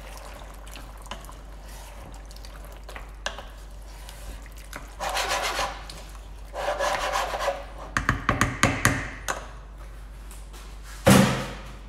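Spoon stirring and scraping through a thick tomato curry sauce in a pan, in a few bouts of rubbing strokes with a quicker run of strokes about 8 seconds in. A brief loud thud near the end.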